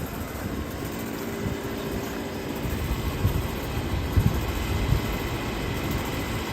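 Trane air conditioner running, a steady fan whoosh with a low hum.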